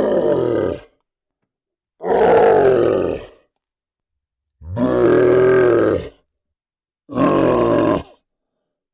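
Monster growl sound effects: four separate growls, each about a second long and pitched in rough stacked tones, with dead silence between them.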